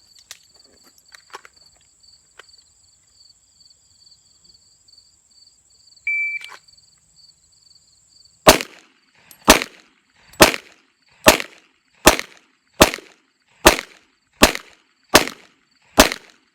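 A shot timer gives one short beep. About two seconds later a pistol fires ten shots, roughly one every 0.8 seconds, the last coming about ten seconds after the beep. Insects chirp steadily until the shooting starts.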